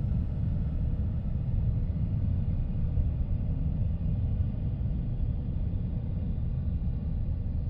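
Steady low rumbling whoosh of placental blood flow picked up by a Doppler probe, often said to sound like the wind in the trees.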